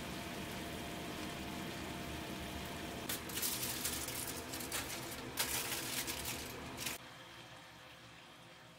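Pork belly and daikon simmering in broth in a pan, a steady bubbling hiss. From about three seconds in, aluminium foil crinkles and crackles loudly as it is laid over the pan as a drop lid, stopping abruptly about seven seconds in, after which only faint room tone remains.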